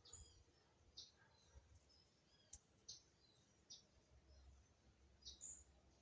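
Faint bird chirps: short high calls repeated every second or so, over a faint low rumble that swells in the second half.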